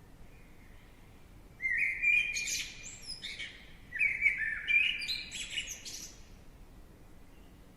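Birds chirping: two bursts of quick, high chirps, the first about one and a half seconds in and the second about four seconds in, dying away by about six seconds.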